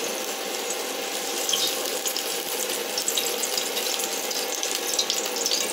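A little cooking oil heating in a pan and sizzling, with scattered small crackles over a steady hiss.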